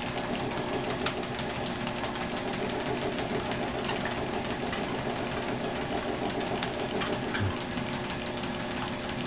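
ProForm treadmill running steadily: an even motor hum with a fast, rhythmic patter from the belt and a small dog's paws trotting on it.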